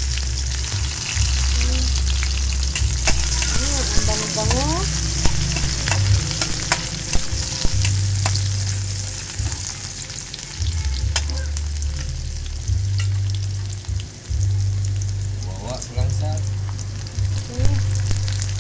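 Garlic and onions sizzling in hot oil in a wok, a steady frying hiss, with a metal spatula scraping and clicking against the pan as they are stirred. A low rumble comes and goes underneath.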